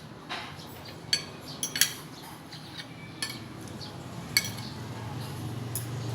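Cutlery clinking against plates and bowls during a meal: several sharp, irregular clinks, over a low hum that grows louder near the end.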